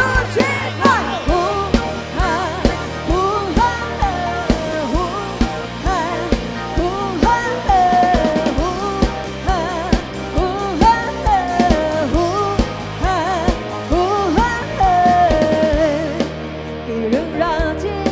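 Live pop-rock band: a woman singing a wavering melody over electric guitars and a drum kit keeping a steady beat.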